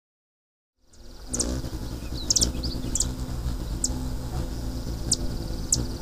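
Hummingbirds chirping: short, high chips repeated every second or so over a low steady hum, fading in about a second in.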